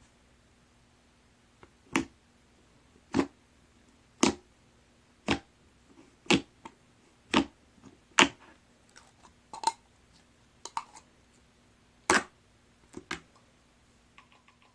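Chocolate-coloured slime being played with by hand, giving sharp wet pops and clicks, about one a second.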